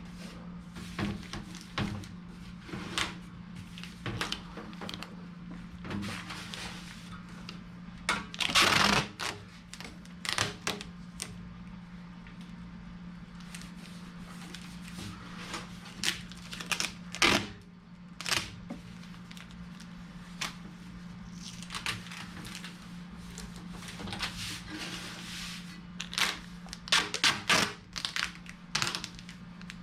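Irregular handling noises: short clicks, taps and rustles of materials being worked by hand, loudest about nine seconds in and in a quick cluster near the end, over a steady low hum.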